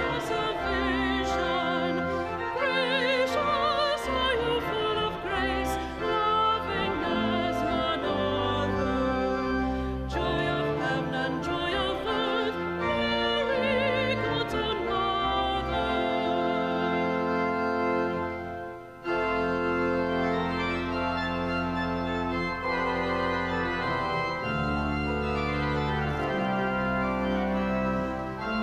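Church organ accompanying a closing hymn sung by a voice with a strong vibrato. The singing ends about two-thirds of the way through. After a brief dip about 19 seconds in, the organ plays on alone in sustained chords.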